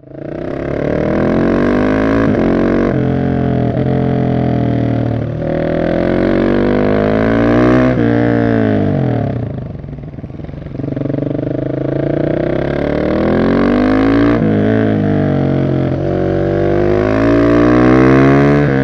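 Husqvarna 701 SM's single-cylinder engine through a decatted Arrow exhaust, accelerating hard with the pitch climbing and dropping back at several upshifts. About halfway through it falls away as the bike slows, then it pulls up through the gears again.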